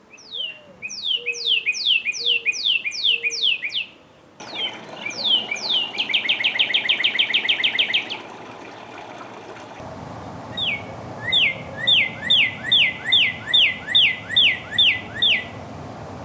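Northern cardinal singing three phrases of loud, clear down-slurred whistles at about three notes a second. The middle phrase breaks into a fast trill. The background noise changes abruptly between phrases, as in separate recordings joined together.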